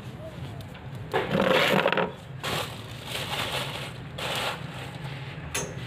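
Barbecue grill fire crackling as it is fanned, with four rushing bursts, the loudest about a second in, over a steady low hum.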